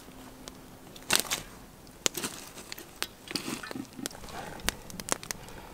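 A spoon clicking and scraping against scallop shells and a steel stockpot as broth is spooned into the shells: a scattered run of sharp clicks and short light scrapes.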